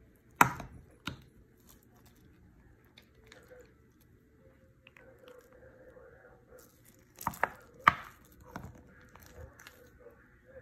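Several short, sharp knocks and clicks: two about half a second apart near the start, then three more between about seven and nine seconds in, with faint handling noise between them.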